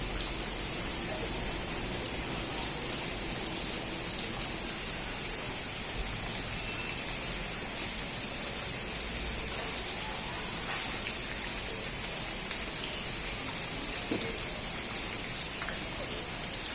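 Steady rain falling: an even hiss with scattered sharper drop hits.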